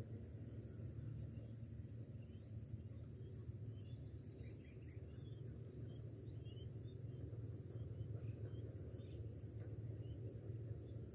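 Insects droning in one steady, unbroken high tone, with faint scattered chirps and a low steady rumble beneath.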